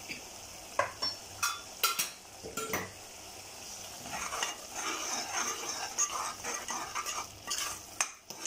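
Metal spoon stirring vegetables and spices frying in oil in a pressure cooker. The spoon knocks and scrapes against the pot several times in the first few seconds, then the oil sizzles more strongly under the stirring.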